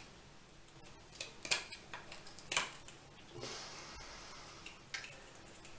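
Small screwdriver scraping and clicking against a corroded metal soda siphon head, chipping at the encrustation: a handful of short, irregular scrapes and taps about a second apart.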